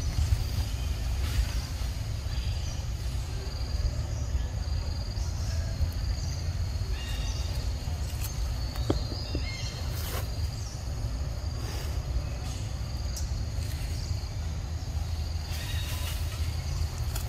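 Outdoor forest ambience: a steady low rumble, a faint high steady drone of insects, and a few short rustles in the undergrowth.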